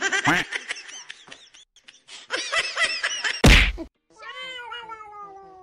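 First, short high-pitched squeals and a loud sudden burst about three and a half seconds in. Then a domestic cat gives one long, drawn-out yowl that slowly falls in pitch, with a low pulsing growl under it: a territorial caterwaul at a rival cat.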